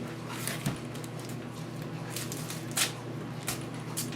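A fork stabbing foil-wrapped potatoes: about six short, sharp crinkling pokes through the aluminium foil, spread irregularly, over a steady low hum.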